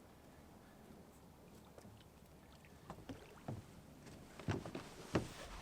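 Irregular knocks and thumps in and against a small boat, starting about halfway through and getting louder near the end, over a faint steady background.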